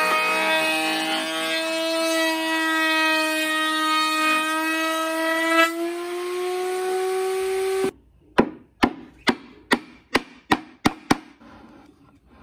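An electric power tool's motor running with a steady whine that slowly rises in pitch, then cuts off suddenly. About nine sharp knocks follow at an even pace, roughly two a second, getting weaker: wood being tapped, as when a round tenon is knocked into its mortise.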